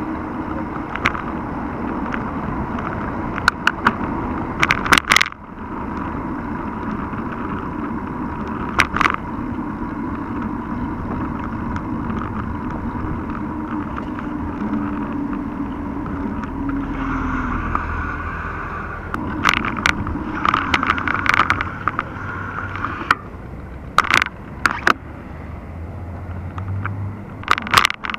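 Mountain bike riding along a city street, heard from a handlebar-mounted camera: a steady rumble of tyres and wind with sharp knocks and rattles as the bike goes over bumps, among car traffic.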